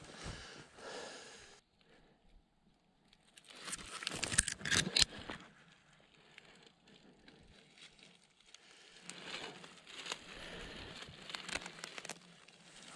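Footsteps rustling and crackling through dry fallen leaves and twigs, loudest about four to five seconds in, with softer rustling later on.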